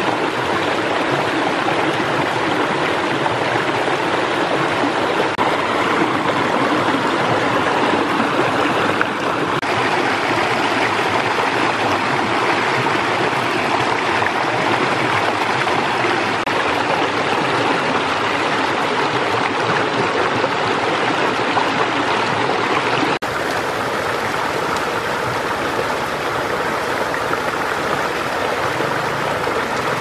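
Shallow stream rushing over rock slabs and small cascades: a steady wash of water, with a slight change in tone about two-thirds of the way through.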